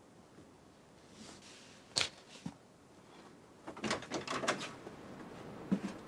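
Clicks and small knocks of a door handle and latch as an interior door is worked open: one sharp click about two seconds in, then a quick cluster of rattling clicks around four seconds in.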